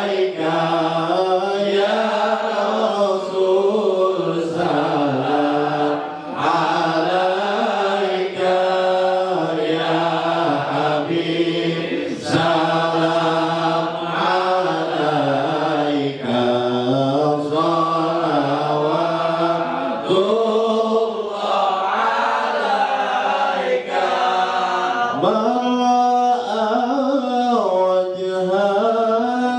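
A man singing Arabic sholawat, devotional praise of the Prophet, through a handheld microphone. He holds long, wavering, ornamented notes with short breaks for breath.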